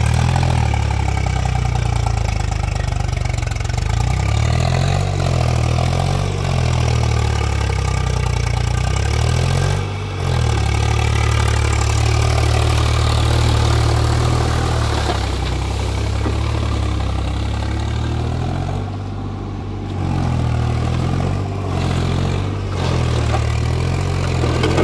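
Farm tractor's diesel engine running under load in deep mud, its pitch wavering up and down as the throttle and load change.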